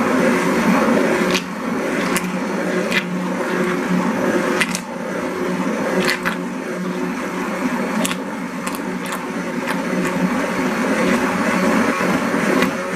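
Stick blender running steadily in a crock pot of thick, hot soap batter of oils and lye, its motor humming, with sharp clicks here and there. The batter is thickening toward a mashed-potato consistency from the stearic acid in it.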